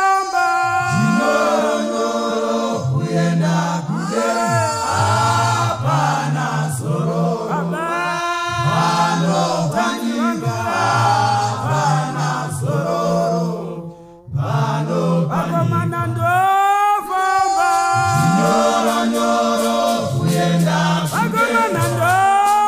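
Male choir singing a gospel song a cappella, several voices in harmony over a low bass part, with a short break about fourteen seconds in.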